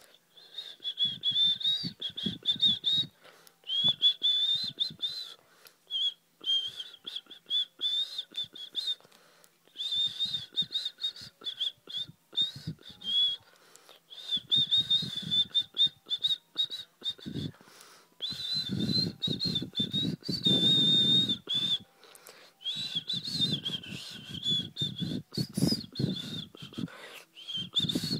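A person whistling a high, warbling note in long phrases with short breaks, and a domestic cat growling low and rough under and between the whistles, loudest about two-thirds of the way in.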